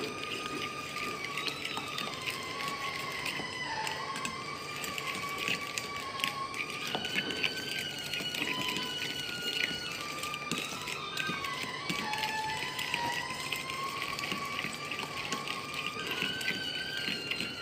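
A metal fork clinking and scraping against a metal bowl in many quick strokes, beating mashed banana and egg into a batter. Behind it, held tones slowly slide up and down in pitch.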